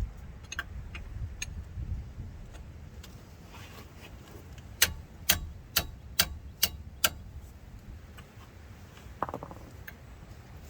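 Sledgehammer striking a box-end wrench on a hub assembly mounting bolt to break it loose: six sharp metallic strikes about half a second apart, a little before the middle, with a few lighter ticks earlier and a short buzz near the end.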